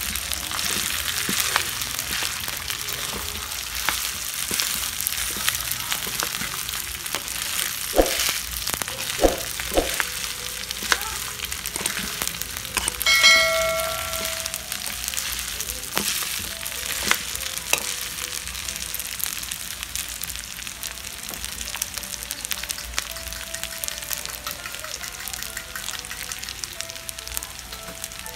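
Cooked rice sizzling as it fries in a hot metal pan, stirred and scraped with a spatula, with scattered clicks of the spatula against the pan. A brief ringing tone sounds about halfway through.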